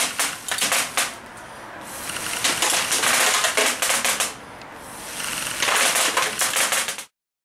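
Hand-made pocket-sized rapid-fire blow gun shooting 0.28 g airsoft BBs fully automatically in three breath-driven volleys. Each volley is a rapid rattle of BB clicks over the rush of blown air. The first volley is short, and the second and third each run a couple of seconds.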